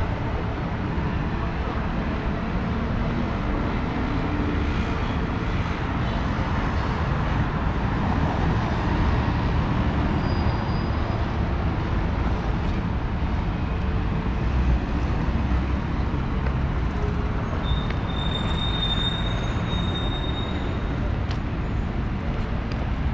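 Steady city road traffic: a continuous low rumble of passing cars and buses. A thin high-pitched squeal sounds for a few seconds near the end.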